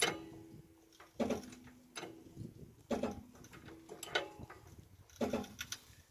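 Hydraulic trolley jack being pumped by its handle as it lifts the van: a metallic clack with a short ring on each stroke, six strokes about a second apart.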